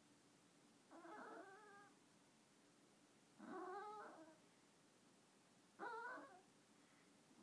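A chihuahua vocalizing: three short, fairly quiet, wavering whine-like calls about two and a half seconds apart.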